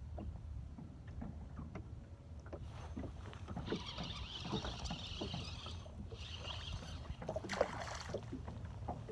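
Small fishing boat on a lake: a steady low rumble with many small knocks and clicks of gear and hull, and a high hiss that comes twice near the middle.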